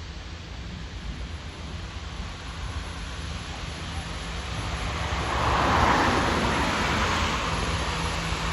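Colas Rail Class 66 and Class 56 diesel locomotives on a rail-head pressure-washing train, approaching with a steady low engine drone that grows louder. A rushing noise swells to its loudest about six seconds in.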